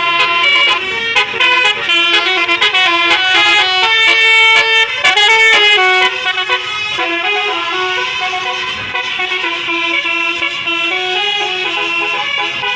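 Multi-tone Basuri 'telolet' bus air horns playing a melody. Their notes step up and down several times a second and are held a little longer in the second half.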